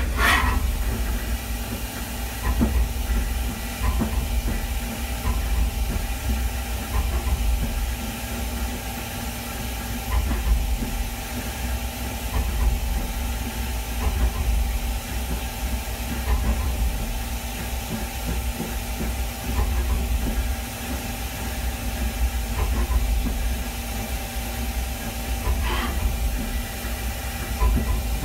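CNC milling machine running a drag-engraving program: a steady hiss and hum over a low rumble, with faint scattered ticks.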